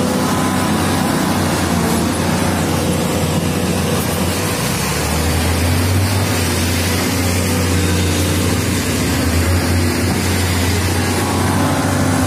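SANY SY215C hydraulic excavator's diesel engine running close by with a steady low hum, getting stronger about five seconds in.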